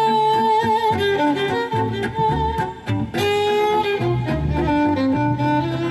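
Instrumental folk music: a fiddle carries the melody, holding long notes near the start and again midway, over plucked-string accompaniment and a bass line.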